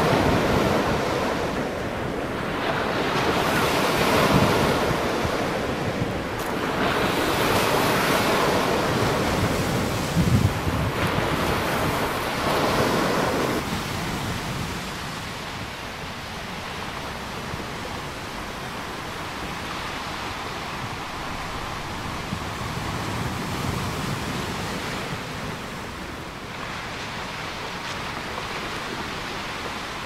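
Ocean surf breaking on a sandy beach, the waves crashing in loud surges every few seconds. About halfway through it falls to a quieter, steadier wash of small waves on the shore.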